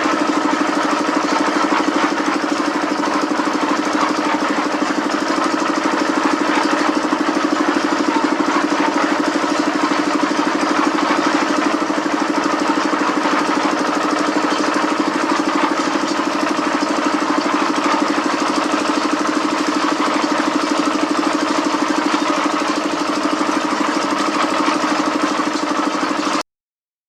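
An engine running steadily at an even speed, with a fast regular pulse. It cuts off abruptly near the end.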